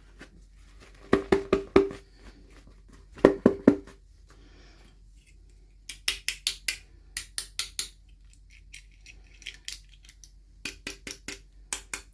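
Hard plastic toy packaging being handled: short runs of four or five quick, sharp clicks and taps, repeated about six times with pauses between them.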